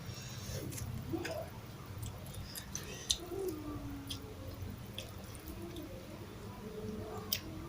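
Close-up eating sounds: wet mouth clicks and smacks while chewing rice with fried sardines, coming irregularly every second or so over a low steady hum.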